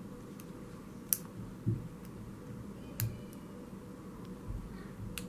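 Lock pick and tension wrench working the pins of a Master Lock No. 3 four-pin padlock: a few sharp, scattered metallic clicks, the loudest about a second in, with some soft low thumps.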